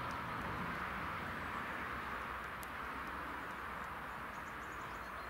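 Steady outdoor background noise, an even distant hiss that fades slightly, with a few faint bird chirps near the end.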